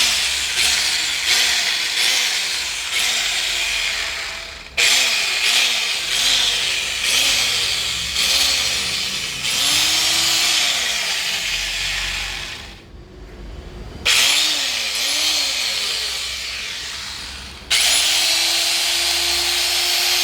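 Handheld electric marble saw motor switched on and off in quick bursts, its whine rising and falling with each pulse, then run in longer spells and held running steadily near the end. It is being test-run after repair and maintenance.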